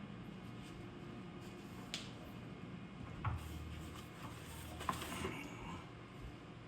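Parts of a resin 3D printer being handled during assembly: a few light knocks and clicks, sharpest about two, three and five seconds in, over low room hum.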